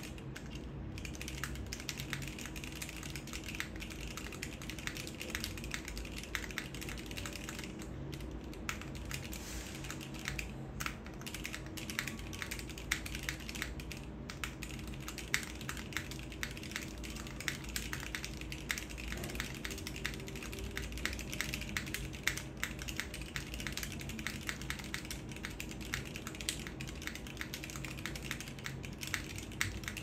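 Steady, fast typing on a JJW Moment mechanical keyboard: stock, unlubed MX clear-top red linear switches in a half-gasket-mounted case with a polypropylene plate and no dampening, under GMK Tuzi keycaps, giving a dense stream of key clacks. The owner blames the unmodded switches for a sound he dislikes.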